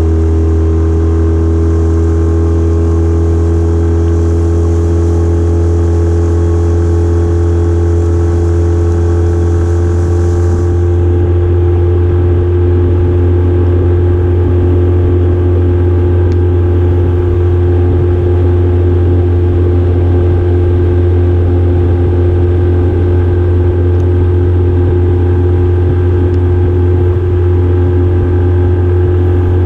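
Mercury 9.9 outboard motor running steadily at a constant speed, pushing an aluminum jon boat along the river.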